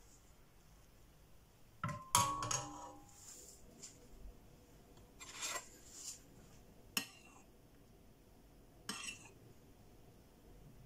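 Metal ladle and spoon clinking against a ceramic soup bowl: a cluster of ringing clinks about two seconds in, then three lighter taps a couple of seconds apart.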